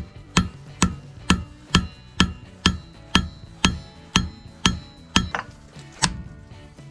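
Blacksmith's hand hammer striking 1/2-inch steel round stock on an anvil, necking it down to forge a leaf: about two blows a second, the anvil ringing after each. The blows stop about six seconds in.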